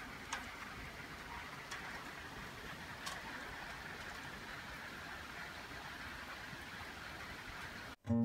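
Faint steady outdoor background hiss with a few light clicks early on. It cuts out near the end as acoustic guitar music begins.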